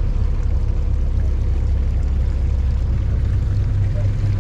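Fishing boat's motor running steadily at slow speed, a loud, even low rumble.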